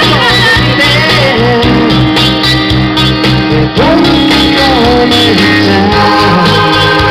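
Karaoke singing through handheld microphones and a PA over a pop backing track with a steady beat.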